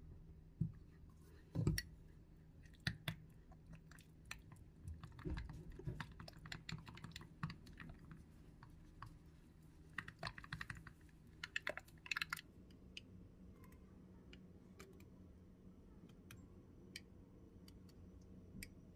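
Small spoon clicking and scraping in a jar of burger sauce as the sauce is dolloped onto toasted burger buns. The light clicks and taps come in scattered clusters and thin out in the last few seconds.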